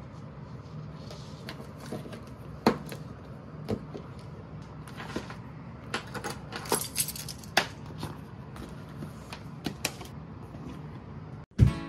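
Small objects handled on a wooden tabletop: scattered light clicks and knocks, with a short jingle of a keyring and car key fob around seven seconds in.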